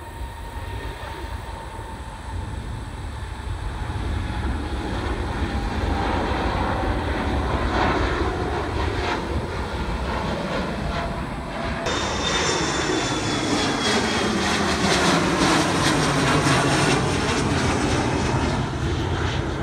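Boeing 747-8 freighter's four GEnx turbofans at takeoff power, the jet rumble growing louder over the first several seconds as it lifts off. After a cut about two-thirds of the way in, an Embraer E175's jet engines pass low overhead with a falling whine.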